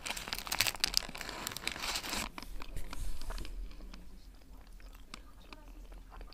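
Biting into a paper-wrapped shawarma with a toasted lavash shell: dense crunching and crinkling for about two seconds, dying away to quieter chewing by the middle.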